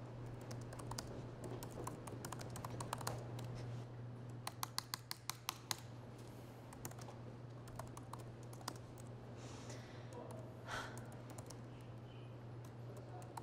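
Typing on a laptop keyboard: scattered key clicks, with a quick run of taps about four to five seconds in, over a steady low hum.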